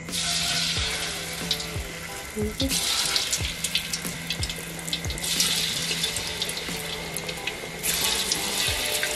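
Batter-coated mung-bean balls (payatham paniyaram) dropped into hot oil, sizzling and crackling as they deep-fry. The sizzle starts at once and swells again a few times as more balls go in.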